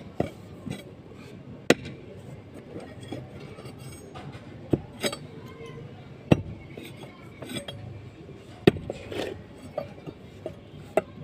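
Sharp metallic clinks and knocks from a hand tool striking hard ground or brick, at irregular intervals of one to three seconds, over low background noise.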